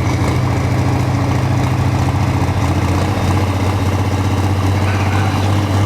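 Diesel pulling tractor's engine idling steadily, its low pitch settling slightly lower about halfway through.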